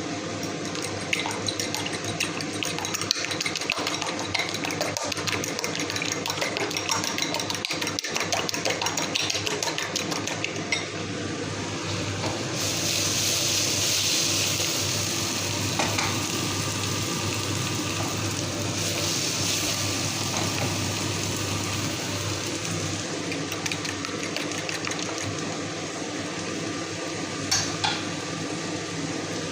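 Eggs being beaten in a bowl, a utensil clicking rapidly against it for about the first ten seconds, then the hiss of food frying in a pan, with a few clinks of a utensil.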